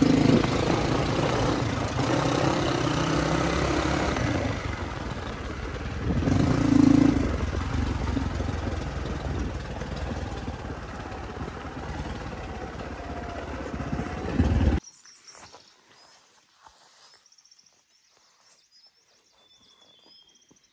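Motorcycle engine running on the move, with a loud rushing noise over it. The sound cuts off suddenly about fifteen seconds in, leaving faint bird chirps.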